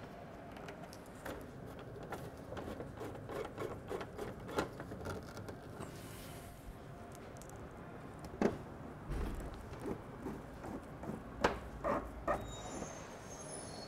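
Hand screwdriver work on a scooter's plastic body panels: a run of small, irregular clicks and ticks as screws are driven in. A few sharper knocks come in the second half.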